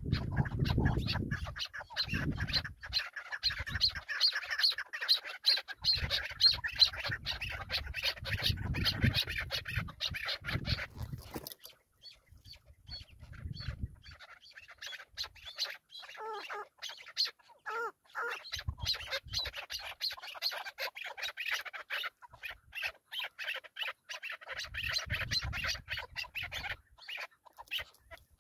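Chukar partridges calling: a rapid chatter of repeated clucking notes, dense for the first dozen seconds, then sparser with a few clearer pitched calls, and building again in the second half. Stretches of low rumble run underneath.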